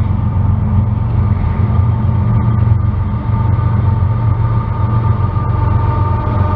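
Diesel freight locomotives approaching with a loud, steady low rumble. Thin high tones grow stronger near the end as the train draws closer.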